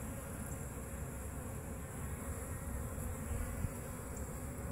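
Honey bees buzzing steadily around a busy hive entrance as pollen-laden foragers come and go.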